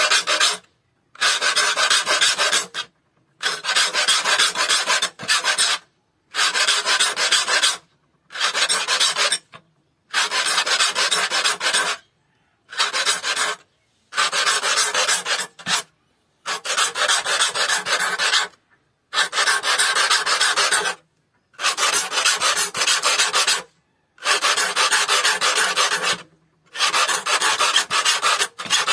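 A steel hand file rasping across the teeth of a hand saw clamped in a vise, sharpening them. It comes in about a dozen spells of rapid strokes, each a second or two long, with brief stops between.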